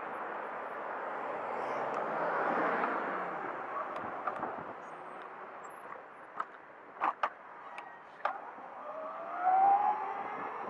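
Riding noise and city traffic heard from a small electric dirt bike: a steady rush of wind and passing cars that swells a couple of seconds in, a couple of sharp clicks about seven seconds in, and a rising whine near the end.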